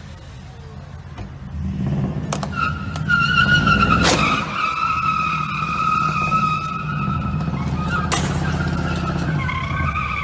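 A car engine revving hard under a long tyre squeal, as an SUV drives into and shoves a small hatchback. Sharp bangs of impact about two, four and eight seconds in, the loudest near four seconds.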